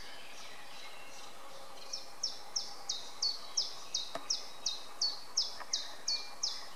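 Short, high chirps, each falling slightly in pitch, repeated evenly about three times a second from about two seconds in, over a steady outdoor background hiss.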